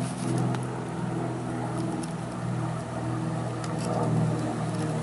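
An engine or motor running steadily, a low hum that wavers slightly in pitch, with a few faint clicks.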